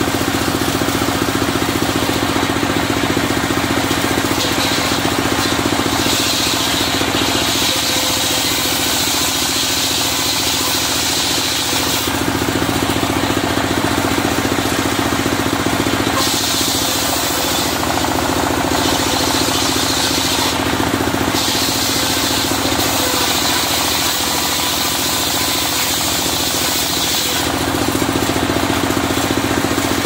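Engine of a portable circular sawmill running steadily with a hard, knocking beat. A higher rasping hiss comes and goes several times as the blade cuts through red sengon wood.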